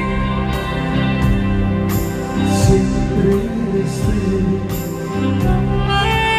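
A live band recorded from the audience: saxophones and strings hold long chords, with sharp percussion hits every second or so.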